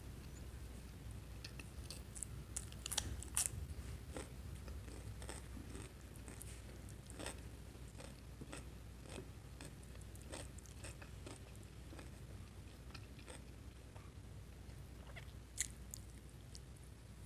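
Close-miked eating sounds: crunchy bites and chewing of a fresh cucumber slice, then softer chewing of corned beef with bread. Scattered sharp crunches, the loudest about three seconds in and one more near the end.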